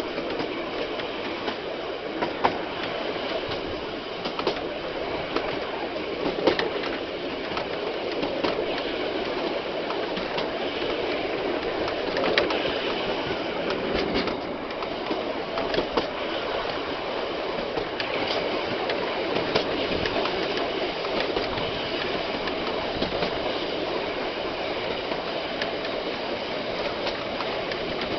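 Heritage passenger train running at steady speed, heard from the back carriage: a continuous rumble of wheels on rail with occasional sharp clicks and knocks.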